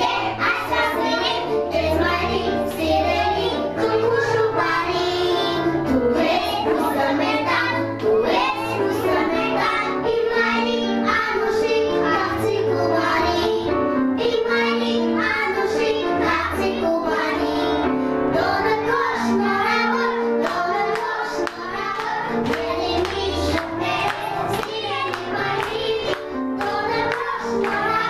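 A group of young children singing a song together over instrumental accompaniment with a steady bass line.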